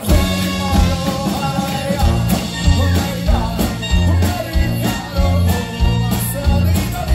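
A live band playing an upbeat song with trumpet, accordion, acoustic and electric guitars and drums over a pulsing bass line.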